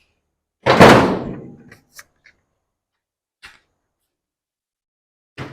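A loud clunk, like something solid set down or shut, dying away over about a second, followed by a few faint clicks and another knock near the end.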